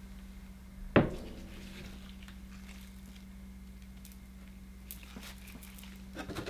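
A single sharp knock about a second in as a glass bowl of sand is set down on a bamboo cutting board, followed later by a few faint small clicks, all over a steady low hum.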